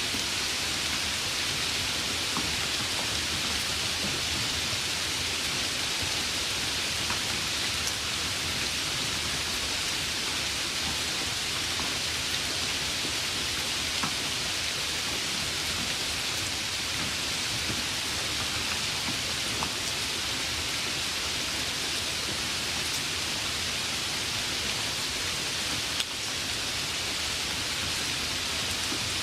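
Light rain falling steadily: an even hiss with scattered small ticks of individual drops, one a little sharper about 26 seconds in.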